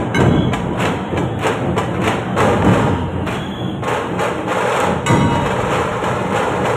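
A dhol-tasha troupe's large barrel drums (dhol) beaten together in a fast, even rhythm.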